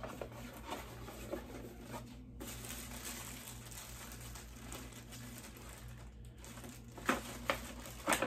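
Cardboard packaging and a plastic bag rustling and crinkling as a pair of kids' headphones is unboxed, with a few sharp clicks near the end.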